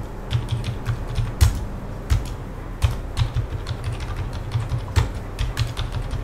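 Computer keyboard being typed on: a quick, irregular run of keystrokes entering numbers into form fields, with a few heavier key presses.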